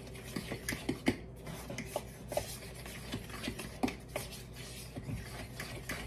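Flour being sifted through a mesh kitchen sieve over a mixing bowl: irregular scraping and rubbing with light taps of the sieve against the bowl.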